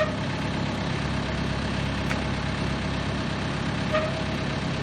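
Vermeer BC 1800 XL wood chipper's engine idling steadily, with a short high note right at the start and again about four seconds in, and a faint click about two seconds in.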